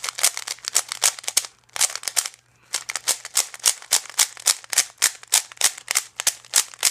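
Plastic Cyclone Boys 3x3 speed cube being turned rapidly, its layers snapping into place in a fast run of sharp clacks, several a second, with a brief pause about two and a half seconds in.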